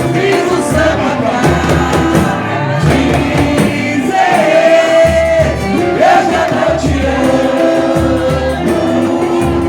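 Live samba band playing, with voices singing over guitar and a steady percussion beat.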